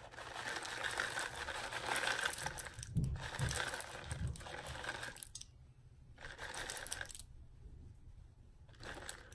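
Pepitas (pumpkin seeds) being shaken from their bag into a bowl, a grainy pour of small hard seeds for about five seconds with a couple of light knocks, then a short bit of crinkling near the end.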